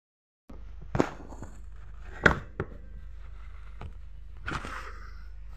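Several short sharp knocks and taps, the loudest about two seconds in, over a low steady hum.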